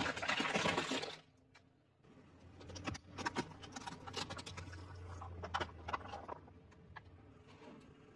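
Car tyre crushing plastic objects on a concrete floor. A dense burst of cracking and crunching comes in the first second, then after a short lull a run of sharp cracks and pops from about three to six seconds in, over a low steady hum of the car's engine.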